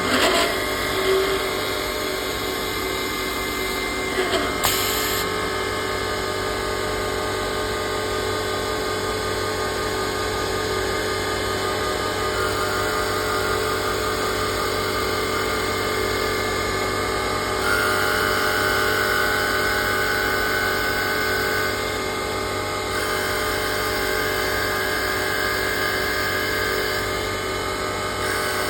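Small automatic-feed CNC woodworking lathe running steadily as its tools turn, drill and cut small wooden caps. There are short clicks near the start and about four seconds in, and a higher whine that comes in twice in the second half, each time for about four seconds.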